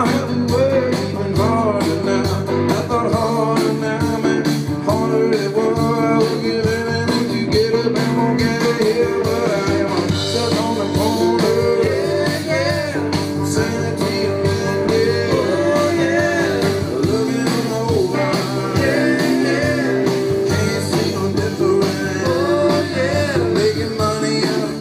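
Rock band playing live, electric guitars, bass and drums with a lead vocal singing over them, in a bluesy rock style.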